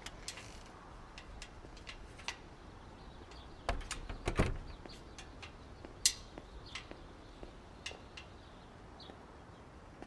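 A front door being opened and shut: scattered light knocks and clicks, with the loudest, a pair of thuds, about four seconds in.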